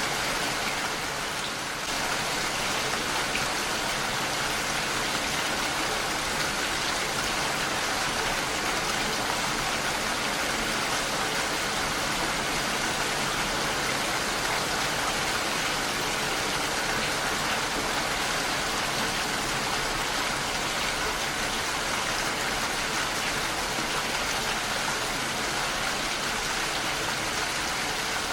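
Heavy rain falling steadily on a window, an even dense patter with no break, dipping slightly in loudness about a second in.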